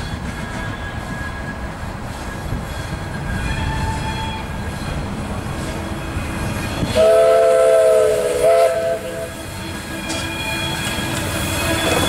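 Steam tram locomotive rumbling along the track as it pulls its coaches out, then sounding its chord steam whistle about seven seconds in: one long blast followed at once by a short one.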